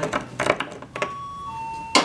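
An electronic two-tone chime, a higher note then a lower one, sounds about a second in. Small clicks and scratches come from a metal probe working a stone-chip bullseye in windshield glass, with a sharp click at the very end.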